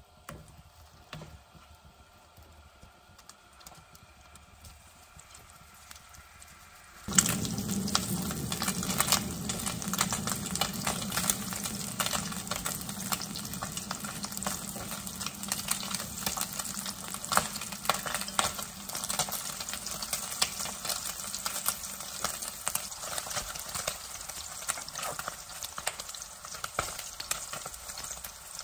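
Slices of Spam frying in hot oil in a pan: a loud sizzle full of crackles and pops that starts suddenly about seven seconds in, after a few faint clicks.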